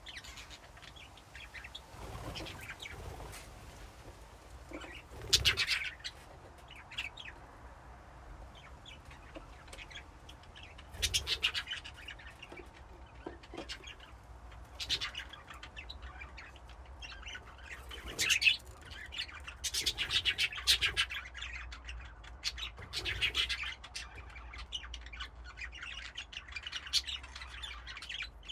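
A flock of budgerigars chirping and chattering together, in irregular bursts of warbling calls, with several louder clusters of squawks.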